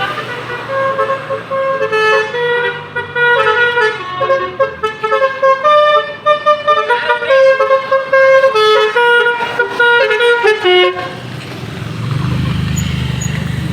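Basuri telolet musical air horn on a car playing a fast tune, one short note after another at changing pitches. It stops about eleven seconds in, leaving a low steady rumble.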